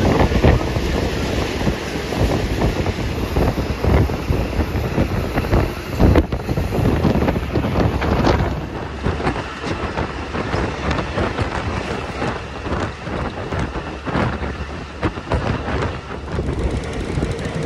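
Wind buffeting the microphone aboard a moving passenger train, over the train's running rumble and rattle.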